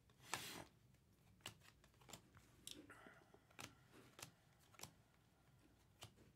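Faint handling noise of trading card packs and cards: a short rustle about half a second in, then scattered light clicks and taps.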